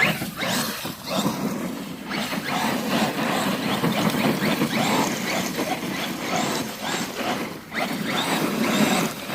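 ZD Racing Pirates 2 1/8-scale brushless RC monster truck being driven hard, its motor whining up and down in quick bursts of throttle, easing off briefly about two seconds in and again near the end.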